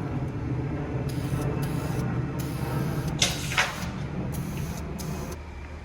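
Aerosol spray can sprayed in five short bursts of hiss, each under a second, putting on another coat of finish, over a steady low hum.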